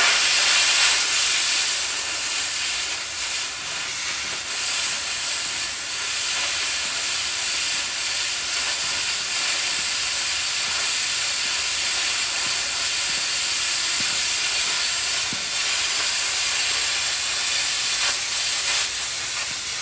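Oxy-fuel cutting torch hissing steadily.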